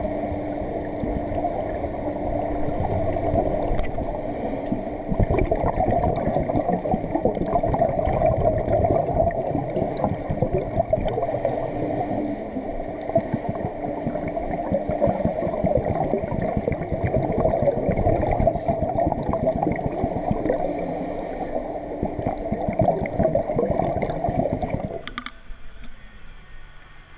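Underwater sound of a swimming pool picked up by a camera in its waterproof housing: a steady, muffled rush of water with a faint low hum. Brief bubbling bursts come about every eight seconds. The rush drops off sharply about 25 seconds in, as the camera comes up out of the water.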